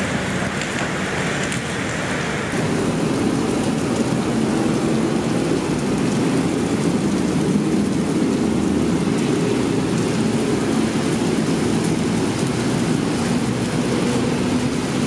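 Steady rain falling, with a low rumble of city road traffic underneath that grows louder about two and a half seconds in.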